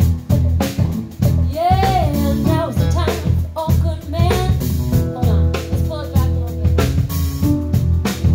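Live funk band playing: drum kit keeping a steady beat over bass, keyboard and electric guitar, with a sung line that bends and slides in pitch about two seconds in and again around four seconds.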